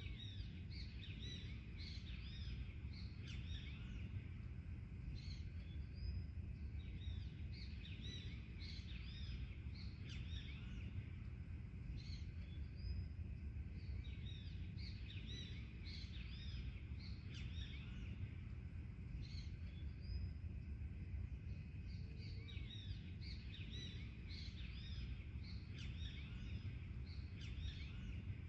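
Many birds chirping and singing together, a dense run of short, quick high calls overlapping one another, over a steady low rumble of background noise.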